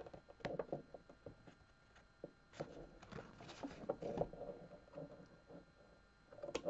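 Scissors snipping threads and fabric ends at a sewing machine's needle plate: a few faint, scattered snips and clicks with soft fabric handling, the sharpest click near the end.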